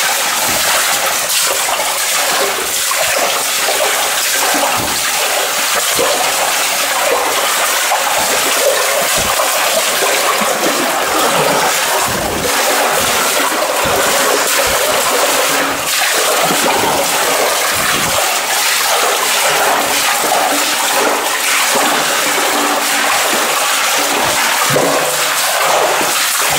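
Boots wading through shallow water in a narrow concrete tunnel: continuous sloshing and splashing, with a dull thud from a footstep every second or so.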